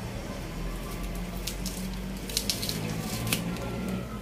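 Sharp clicks and rustling from a flat ribbon cable being handled and fitted at an LED TV's main board, with a low hum underneath. Most of the clicks come in the second half.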